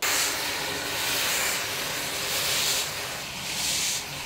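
Steam hissing loudly from the open cylinder drain cocks of a 1960 Andrew Barclay narrow-gauge steam locomotive. The hiss starts abruptly and swells every second or so.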